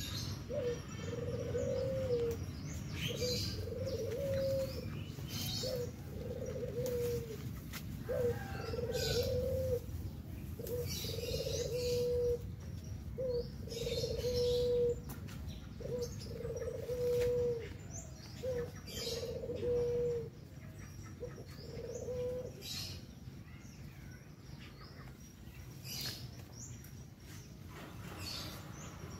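A dove cooing, one short low call about every two seconds, a dozen or so times before it stops a little over twenty seconds in. Short rustles of leaves come in between as cassava and papaya leaves are handled and picked.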